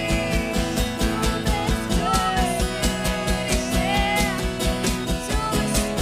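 Worship band playing an instrumental passage of a praise song, with a steady driving beat about four times a second under held, sliding melody notes.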